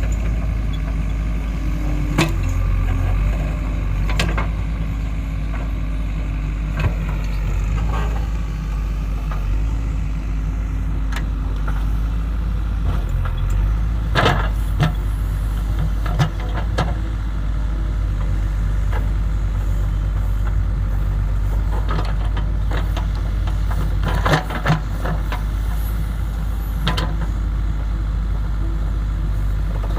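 JCB 3DX backhoe loader's diesel engine running steadily under work, with occasional sharp knocks from the working machine.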